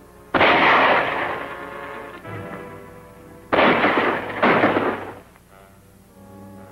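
Three gunshots, each followed by a long echoing tail: one about half a second in, then two close together about a second apart near the middle. Orchestral film score plays underneath.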